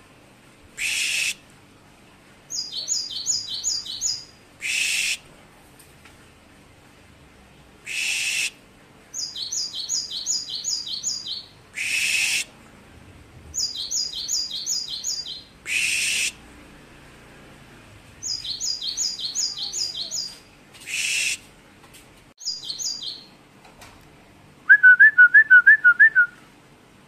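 Caged cinereous tit singing a varied song. Short harsh notes alternate with quick runs of six or so repeated high notes. Near the end comes a louder run of about seven lower notes.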